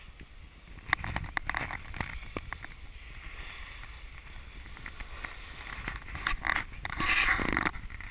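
Skis sliding and scraping over packed snow, with a low rumble of wind on the microphone and scattered clicks. The scraping swells louder about a second in and again from about six to seven and a half seconds in.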